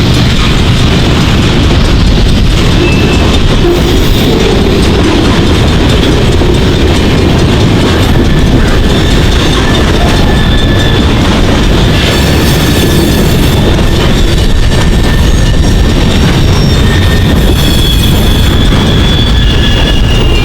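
Freight train rolling past, a steady rumble of wheels on rail with clacking over the joints, and thin high wheel squeals that come and go in the second half.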